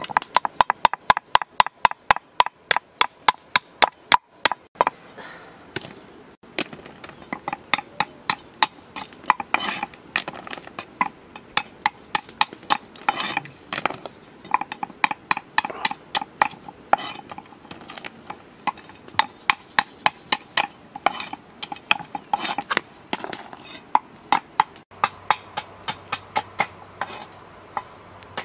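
A cleaver chopping snail shells on a round wooden chopping block: sharp chops about three a second at first, then in uneven runs with short pauses.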